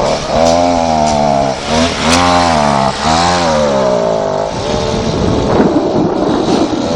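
Small gas engine of a dirt bike revved on the throttle, its pitch rising and falling in three or four surges, then settling to a rougher, lower running about two-thirds of the way in. The mechanic puts its failure to stay running down to a dirty carburetor.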